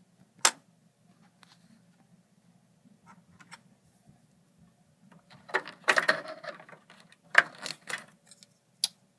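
Hands working a DDR2 memory stick and cables inside an open Dell Dimension 9150 desktop case: a sharp click about half a second in, then in the second half a cluster of clicks, scraping and plastic rattling, with one more click near the end.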